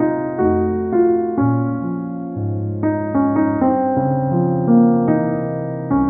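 Background piano music, a melody moving to a new note about every half second.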